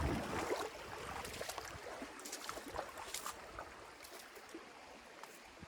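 Footsteps in water shoes over rocks and shallow water in a low river: scattered small splashes and knocks over the trickle of the stream, louder in the first second or so.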